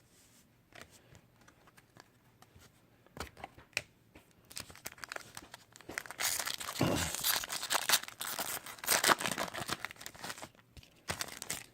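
Trading-card packaging crinkling and tearing: a few scattered clicks, then dense crinkling from about four and a half seconds in to near ten and a half, and a short burst near the end.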